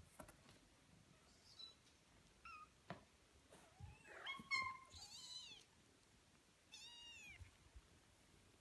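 Very young kittens, about 18 days old, mewing: a few faint high-pitched mews, then a louder run of arching mews about four to five seconds in and one more near seven seconds.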